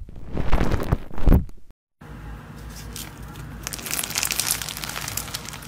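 Hands squishing and pressing soft slime, wet squelching and popping for about a second and a half. After a short break to silence, slime packed with small clear plastic beads is squeezed and kneaded, giving a steady crackling crunch of many small clicks.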